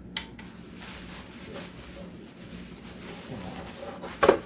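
Aluminum towel rack parts being handled: a light click just after the start and a louder metallic clack near the end, with faint handling noise between.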